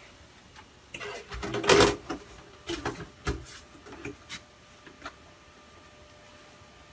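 The cover of a Supermicro SuperServer mini-tower case being lowered and fitted onto the chassis: a run of knocks, scrapes and clicks over about four seconds, the loudest just before two seconds in. Then only the server's fans keep up a faint steady hum.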